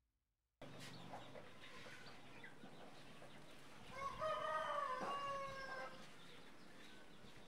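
A rooster crows once about four seconds in, a drawn-out call of about two seconds, over a low farmyard background with faint chirps.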